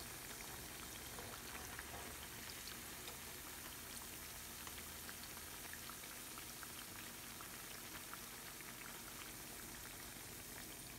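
Hot oil sizzling steadily with fine, rapid crackles as poha fritters (aval vadai), cooked on both sides, deep-fry in a pan.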